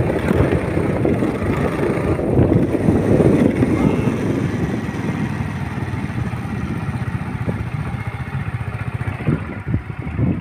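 Motorcycle riding over a sandy riverbed, its engine mixed with heavy wind rumble on the microphone; the sound eases off over the last few seconds, with a few short knocks near the end.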